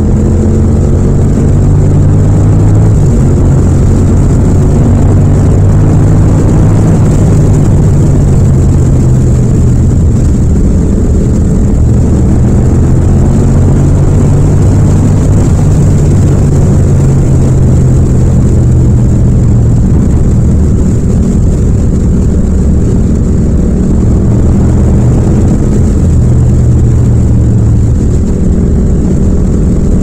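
Yamaha MT-07's parallel-twin engine through a Yoshimura exhaust, running steadily at cruising speed under light throttle, changing up from fourth to fifth gear along the way. The engine pitch holds mostly level with a few small rises and dips, and there is little wind noise.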